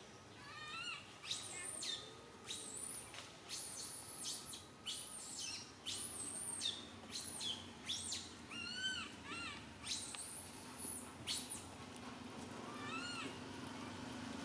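Baby macaque crying: a run of high-pitched, arching squealing cries, several a second, thinning out near the end.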